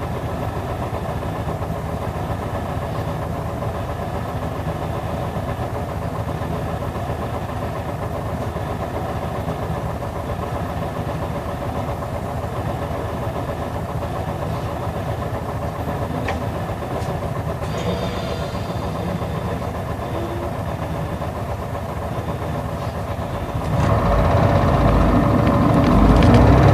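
Isuzu Erga bus's straight-six diesel idling steadily, heard from inside the cabin. Near the end the engine revs up and gets louder as the bus pulls away.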